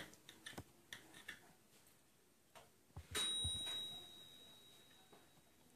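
Knife and fork clicking lightly against a ceramic plate as grilled chicken is cut. About three seconds in comes a sharper clink that rings on as a high, clear tone, fading over about two seconds.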